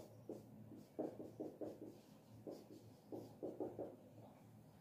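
Marker pen writing on a whiteboard: faint short strokes in quick clusters as letters and symbols are drawn.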